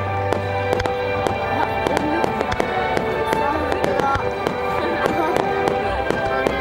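Fireworks display: rapid, repeated bangs and crackles from bursting aerial shells, over background music and voices.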